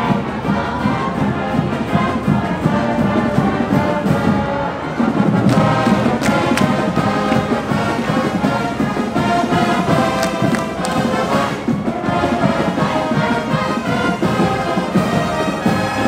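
High school marching band playing a loud brass tune with chords, backed by drum hits.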